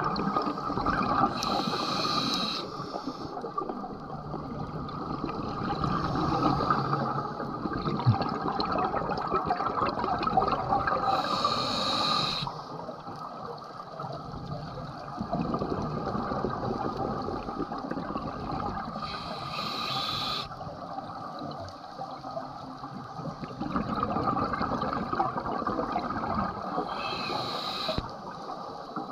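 Scuba diver breathing through a regulator underwater: a short hiss on each inhalation, about every eight seconds (four times), each followed by a long gurgling rush of exhaled bubbles.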